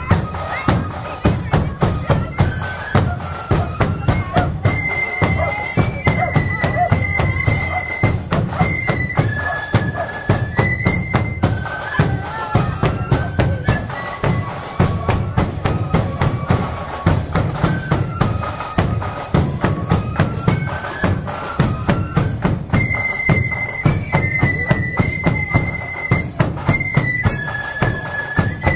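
Marching flute band playing a tune: a single high melody on flutes over a steady beat of drums, with a bass drum booming underneath.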